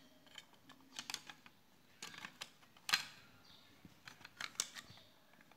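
Scattered small clicks and taps of hands handling the opened plastic multimeter case, its circuit board and a small screwdriver, with the sharpest click about three seconds in.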